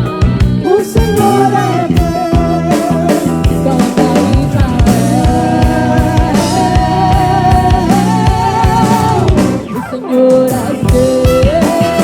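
Live band music: drums, bass guitar and keyboards under a lead melody of long notes held with vibrato. The music drops back briefly near ten seconds and then picks up again.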